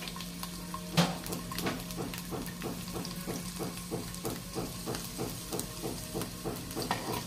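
Garlic cloves frying in hot oil in a small pan for a tempering: a steady sizzle with small crackling pops about three times a second and one sharper pop about a second in, over a steady low hum.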